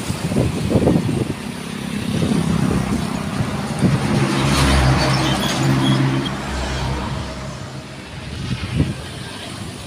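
A cargo truck's diesel engine drawing near and passing close by, loudest about five seconds in, then fading away. Wind buffets the microphone at the start.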